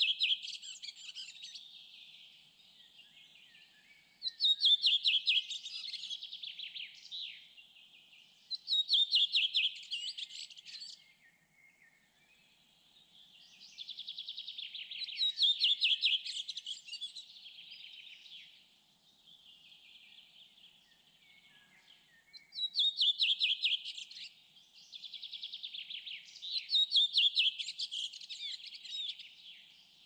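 A songbird singing the same rapid, trilled phrase over and over, about seven times, each phrase a couple of seconds long with short pauses between.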